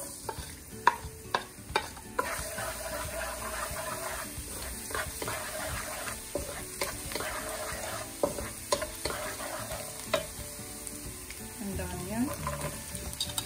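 Minced garlic sizzling in hot oil in a frying pan as it is stirred with a wooden spatula. Sharp knocks of the spatula against the pan come several times in the first two seconds and again later, and the sizzle grows louder about two seconds in.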